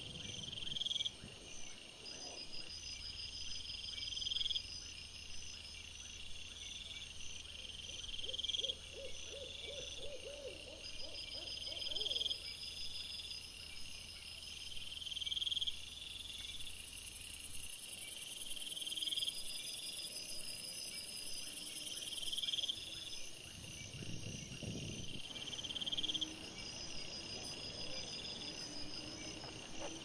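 Night woodland ambience of insects chirping: a high chirp repeats about every second and a half to two seconds, with fainter trills above it and a short run of lower pulsed calls near the middle.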